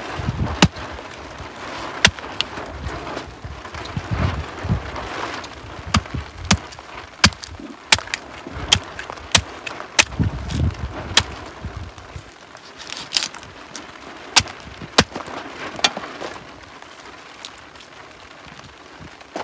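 Machete chopping a goat head on a wooden chopping block: a series of sharp chops, about one a second, that thin out near the end.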